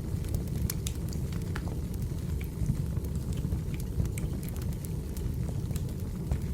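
Wood fire crackling: irregular sharp pops and snaps of burning logs over a steady low rumble of flame.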